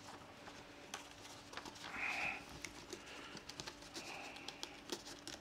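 Printed sheets of paper handled and turned at a lectern: two short, soft rustles about two and four seconds in, among scattered light ticks, over a faint steady room hum.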